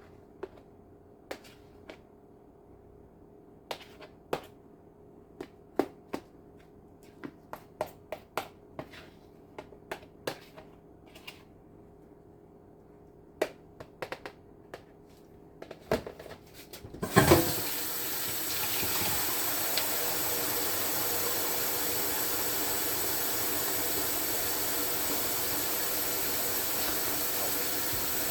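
Light clicks and knocks of utensils and containers, then a loud knock about two-thirds of the way in as a kitchen tap is turned on, and water runs steadily into the sink.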